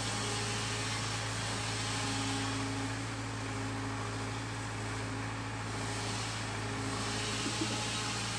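Hyundai hydraulic excavator running steadily, its diesel engine holding a constant low drone while the boom and bucket push against a tree.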